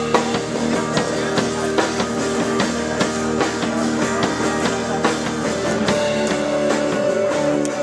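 Rock music: an instrumental passage of guitar over a steady drum beat, with no singing.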